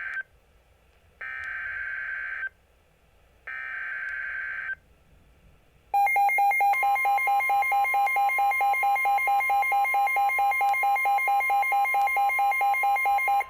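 Emergency Alert System signal on NOAA Weather Radio: three short bursts of SAME header data, a harsh digital screech about a second long each with short gaps between, then about six seconds in a loud electronic alert tone that pulses about four times a second over a steady tone. The sequence heralds a new severe thunderstorm warning.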